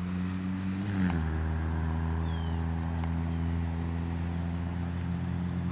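An engine running steadily, its pitch dropping a step about a second in and then holding even.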